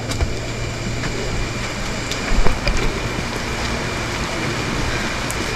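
Heavy tropical rain pouring down: a steady hiss with scattered drop clicks, and a few low thumps about two and a half seconds in.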